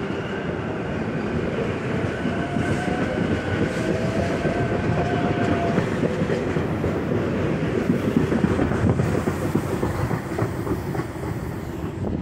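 Stainless-steel electric commuter train (SEPTA Silverliner) pulling along the platform, wheels rumbling and clicking over the rail joints, with a faint motor whine rising in pitch a few seconds in.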